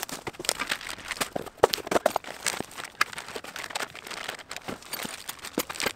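Cardboard shipping box being opened and its packing material handled, crinkling and rustling, with irregular sharp clicks and scrapes throughout.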